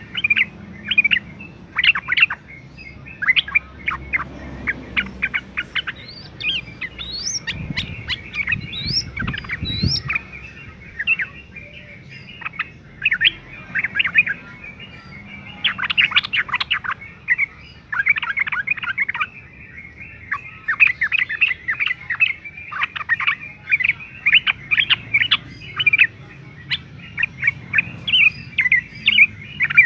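Yellow-vented bulbul singing and chattering in rapid bursts of short notes, with a few rising whistled notes about a third of the way in.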